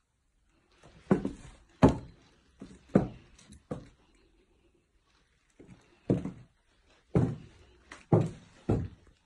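Footsteps thudding on bare wooden floorboards: four heavy steps, a pause of about two seconds, then four more.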